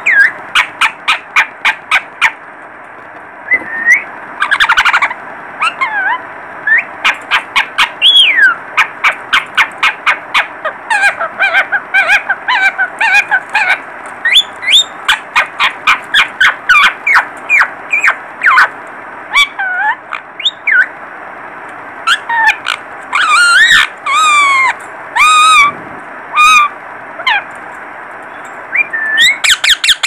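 Young yellow parakeets in a cage calling: a fast run of short, sharp squawks, several a second, mixed with rising and falling whistled calls. There is a brief lull about three seconds in and a burst of louder, harsher calls near the end.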